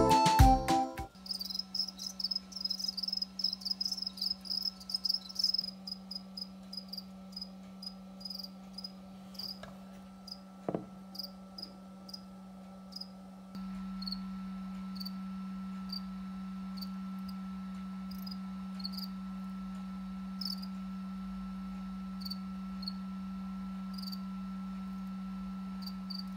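House crickets (Acheta domesticus) chirping, short high chirps repeated quickly for the first few seconds, then more sparsely. A steady low hum runs underneath and steps up about halfway.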